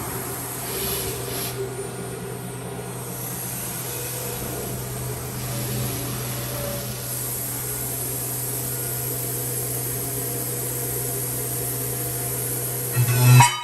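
A 4-axis CNC machining centre for aluminium profiles running steadily, a constant low hum with a faint high whine. It grows sharply louder for a moment near the end and then cuts off suddenly.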